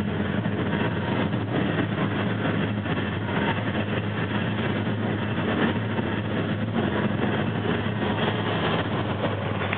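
Crowd noise from a large indoor arena audience, a steady dense din with a constant low hum underneath.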